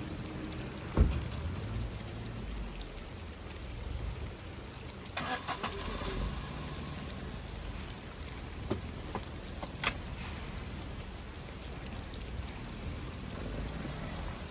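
A car door shuts with a thud about a second in, then the car's engine runs low and steady, with a few clicks and rattles over it.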